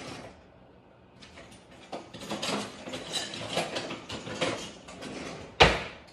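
Kitchen utensils clattering as someone rummages through a drawer for a spatula, a quick run of rattles, then one sharp knock near the end.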